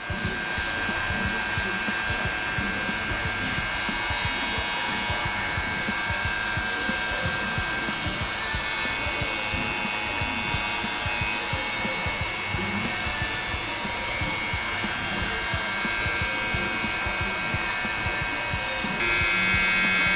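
Cordless Limural hair clipper switched on and running: a steady electric motor hum with a high whine from the blade, getting louder about a second before the end.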